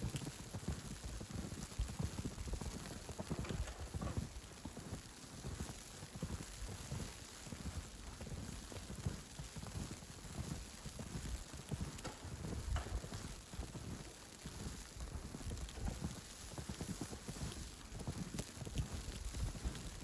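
Footsteps crunching through snow at a steady walking pace, with a soft hiss of snowfall and street ambience behind them.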